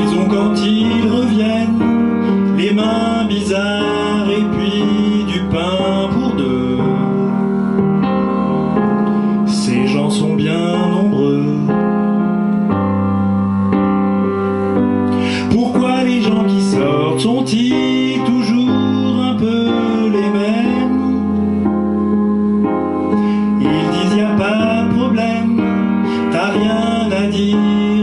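A man singing a gentle French song into a microphone over a piano karaoke backing track.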